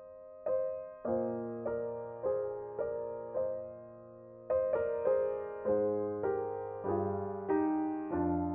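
Background solo piano music: slow, gentle notes struck about twice a second, each fading away, with a brief pause near the middle.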